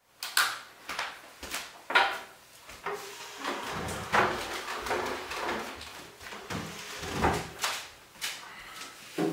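Someone rummaging through a kitchen: a run of irregular knocks, clunks and rustles as objects on the counter are handled and wooden chairs are moved, with a few sharper knocks among them.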